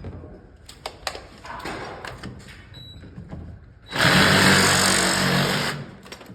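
A few light clicks and knocks, then about four seconds in a loud motor-driven whirr with a low hum. It lasts just under two seconds and then cuts off.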